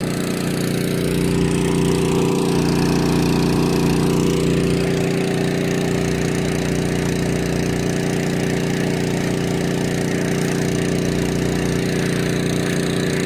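Small engine-driven water pump running steadily at a constant speed, feeding a hose and PVC jetting pipe that washes a hole in the mud bottom for a dock piling.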